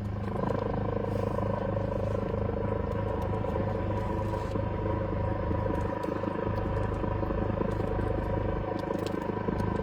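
An engine running steadily with an unchanging pitch.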